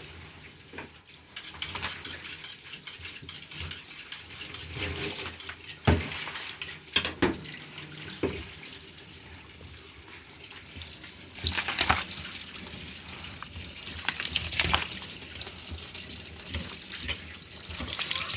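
Water running from a tap onto a fish-cleaning table, with scattered sharp knocks and scrapes of knives and fish on the cutting boards as tilapia are scaled and filleted.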